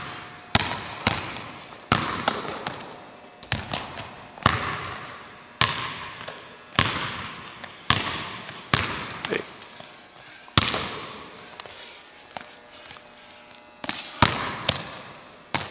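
Basketball dribbled on a hardwood gym floor: sharp bounces at an uneven pace, some in quick pairs and clusters, each echoing briefly in the hall. Two brief high squeaks cut in among them.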